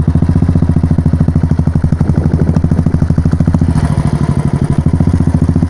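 Royal Enfield single-cylinder motorcycle engine running at a steady idle through a Moto Torque Shark aftermarket exhaust: a loud, even train of deep thumps, about ten a second.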